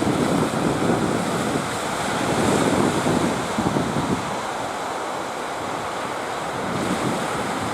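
Strong wind buffeting the microphone over the steady wash of surf.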